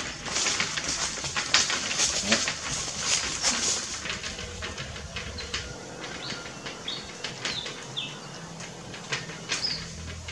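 Crackling rustle of dry leaf litter underfoot, louder in the first half, with several short high bird chirps in the second half.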